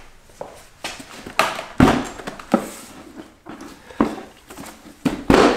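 Plastic side panel of a Husqvarna FE350 dirt bike being handled and worked loose: several sharp plastic knocks and clicks, the loudest about two seconds in and near the end.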